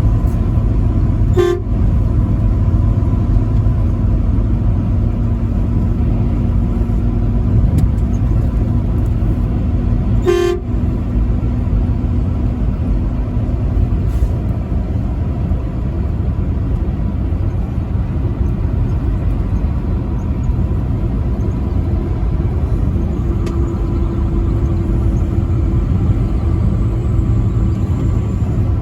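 Truck horn sounding two short blasts about nine seconds apart, over the steady low drone of a vehicle driving on the highway.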